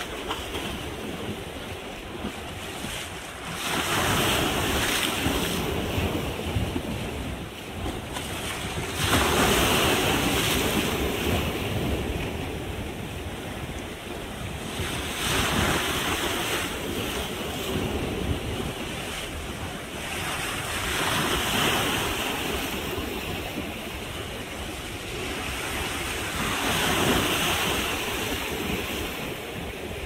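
Small sea waves washing and breaking against a breakwater of large rocks, the surf swelling five times, about every six seconds, between steadier wash.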